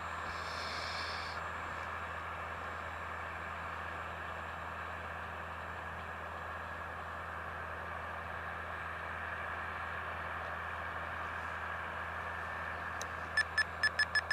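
Steady, faint hiss of a distant 50 mm electric ducted fan on a small RC jet in flight. Near the end a run of sharp electronic beeps starts, turning into fast continuous beeping.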